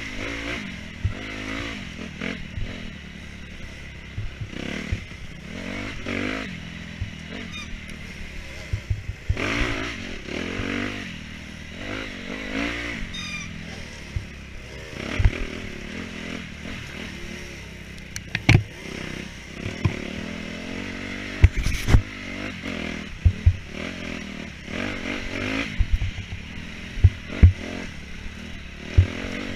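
Dirt bike engine revving up and down as it is ridden hard along an off-road track, with sharp knocks and clatter from the bike here and there.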